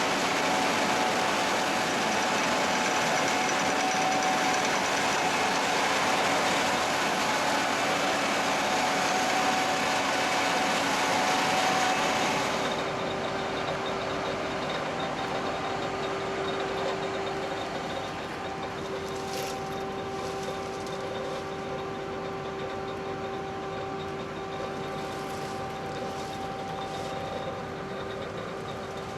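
Gleaner S67 combine running with a steady mechanical din; about twelve seconds in the noise drops and a steadier, lower hum takes over.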